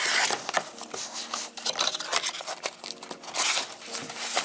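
A cardboard box being opened by hand: flaps and an inner box scraping and rustling as they are pulled and slid out of the sleeve, with small taps and clicks. The rustling is loudest at the start and again about three and a half seconds in.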